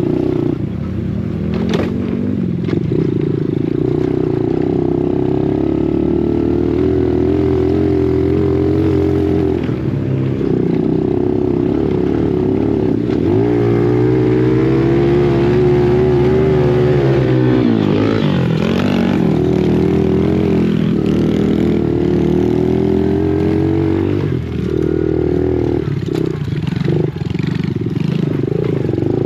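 Dirt bike engine running under way, its pitch wavering with the throttle and dipping then climbing again a couple of times as the rider eases off and accelerates.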